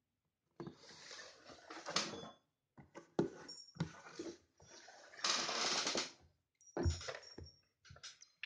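A cardboard toy box being handled and shifted on a table: bursts of rubbing and scraping, with a few sharp knocks.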